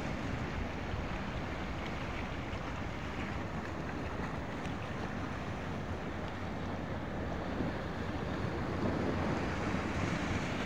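Small sea waves washing against a rocky shore, with wind buffeting the microphone: a steady rushing noise without break.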